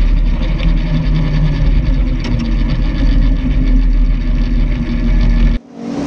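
Onboard sound of a drag racing vehicle running down the strip: a steady engine drone under heavy wind rumble on the microphone. The sound cuts off suddenly near the end and gives way to a lighter motorcycle engine running.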